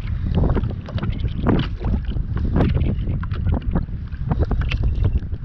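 Wind buffeting the microphone in a steady low rumble, with irregular short slaps and splashes of water.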